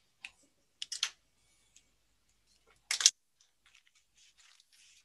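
A few scattered sharp clicks and taps, the loudest about three seconds in, followed by faint rustling.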